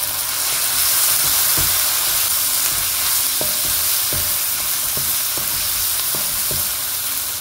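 Onions, tomatoes and spices sizzling steadily in a speckled nonstick frying pan while a wooden spatula stirs them, knocking against the pan several times.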